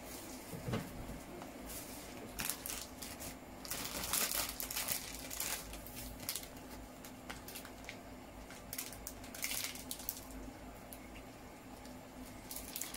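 Plastic instant-noodle seasoning sachets crinkling as they are handled, in short irregular rustling bursts, busiest about four seconds in, over a faint steady hum.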